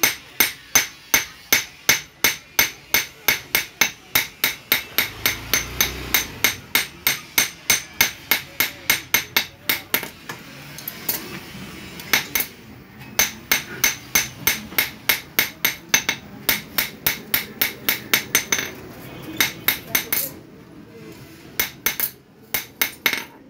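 Blacksmith's hand hammer forging red-hot iron on a small steel anvil, struck about three times a second with a metallic ring on each blow, in runs broken by a few short pauses.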